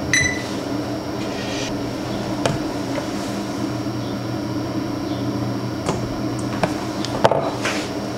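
A steady hum runs throughout. A short high beep sounds right at the start, and several light clicks follow as a multimeter test probe taps against the circuit board, the sharpest about seven seconds in.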